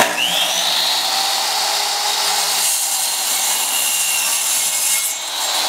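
Electric miter saw starting with a quick rising whine, then running steadily as its blade cuts down through a strip of wood.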